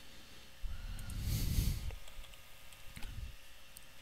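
A few faint computer keyboard and mouse clicks as the year fields are retyped. About a second in comes a loud breath blown out onto the microphone, lasting about a second.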